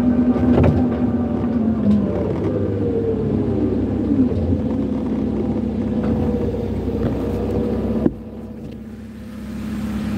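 Forklift engine running under load, its pitch falling away after a couple of seconds and gliding lower. About eight seconds in a sharp click comes, the sound drops suddenly, then it picks back up to a steady idle.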